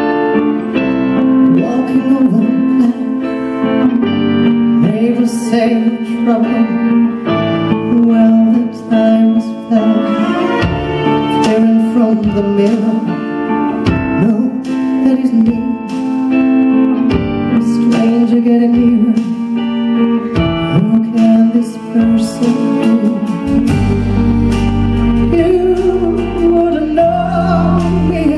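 Live concert music: a solo singer sings a slow melody into a microphone over instrumental backing. Near the end a deep bass comes in under the song.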